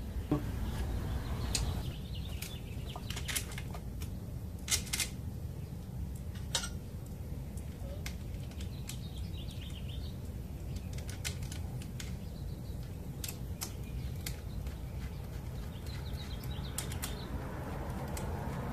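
Scattered light clicks and taps of metal parts and an Allen key being handled at the bicycle's handlebar stem as the riser's bolts are put in, over a steady low background noise.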